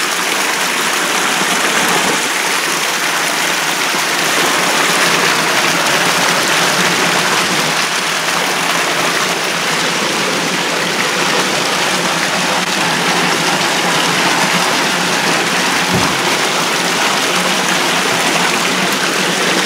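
Steady rush of shallow water flowing through a round concrete culvert pipe, heard from inside it, with one dull thump about sixteen seconds in.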